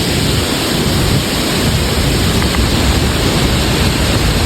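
Steady, loud rush of a waterfall, an even roar of falling water with no breaks.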